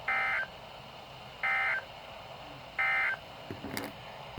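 Three short bursts of warbling digital data tones from a NOAA Weather Radio broadcast, each about a third of a second, about a second apart: the EAS/SAME end-of-message code closing the alert. A few faint clicks follow near the end.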